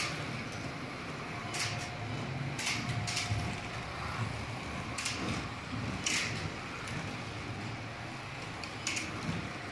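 Several digital slot cars lapping a track: a steady whirr of their small electric motors, with several short clicks along the way.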